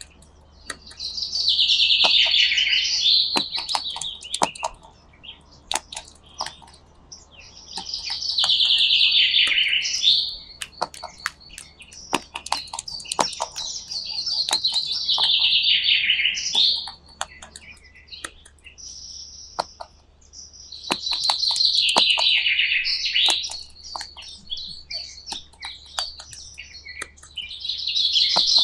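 Birdsong: a loud chirping phrase recurs about every six or seven seconds, each lasting a couple of seconds and dropping in pitch at its end, with many sharp clicks scattered between the phrases.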